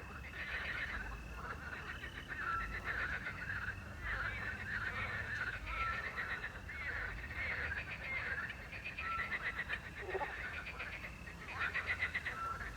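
A chorus of frogs croaking at night, with dense rattling calls overlapping. A short, steady whistled owl note repeats about every three seconds.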